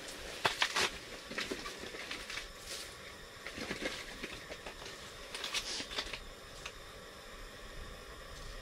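Handling noises: a cluster of sharp clicks under a second in, scattered rustling and crinkling, and a few more clicks around six seconds in.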